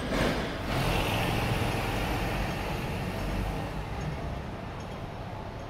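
A Hong Kong double-decker tram and street traffic rumbling past, a steady low vehicle noise with a faint high whine. It grows quieter over the last couple of seconds.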